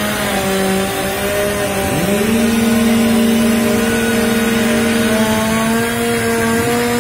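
Chainsaw engine speeding up about two seconds in, then held at full throttle with a steady high whine, as used to cut up a storm-felled tree.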